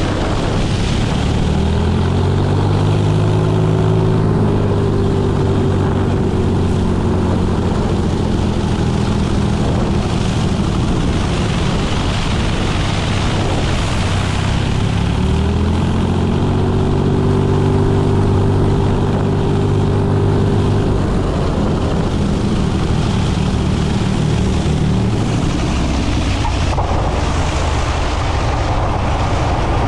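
Light single-engine airplane's engine and propeller droning, with wind rushing over the microphone on the approach to land. The engine's pitch glides up and holds twice, and near the end the sound changes as the plane comes down over the runway.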